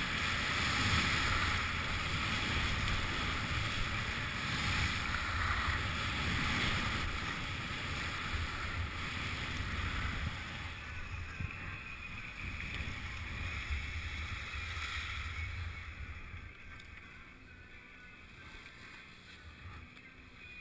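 Skis sliding and scraping over groomed snow at speed, with wind rushing over the camera's microphone. The rush eases from about halfway through and falls away near the end as the skier slows on flatter ground.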